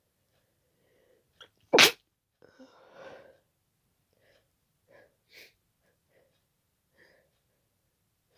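A single loud, wet sneeze from a congested, pollen-irritated nose, about two seconds in, then breathy exhaling and a few faint, short breath sounds.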